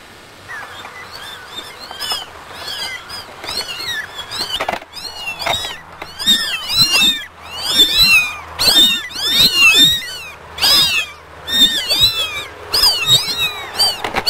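A litter of young kittens mewing: many short, high-pitched mews from several kittens at once, overlapping at several calls a second. They start about half a second in and grow louder and more insistent about halfway through.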